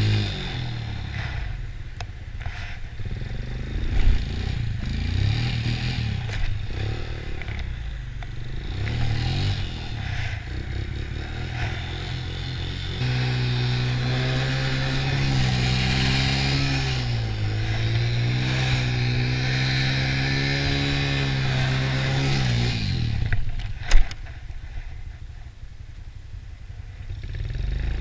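1996 Honda TRX90 quad's small single-cylinder four-stroke engine revving up and down under riding, then holding a steadier high rev for several seconds before dropping off. A single sharp knock follows about a second later, and the engine picks up again near the end.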